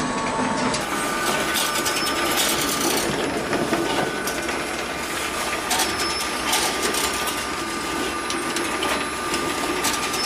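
Automatic egg collection machine and egg conveyors of a layer cage system running: a steady mechanical clatter with many small clicks and a constant whine.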